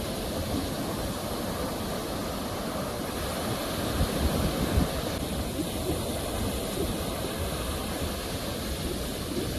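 Ocean surf: waves breaking and washing ashore in a steady, deep rush of water noise, with a louder low surge about four to five seconds in.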